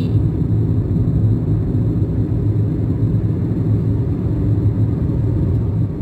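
Steady low rumble of a car driving on the road, heard from inside the cabin: engine and tyre noise.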